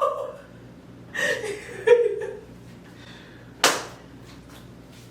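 A person's short vocal sounds about one and two seconds in, then a single sharp smack about three and a half seconds in.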